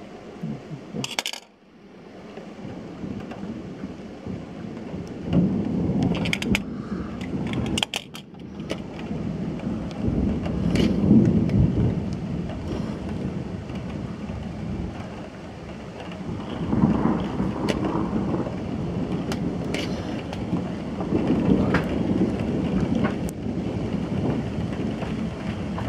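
Thunder rolling in several long, low rumbling swells over steadily falling rain, with scattered sharp ticks.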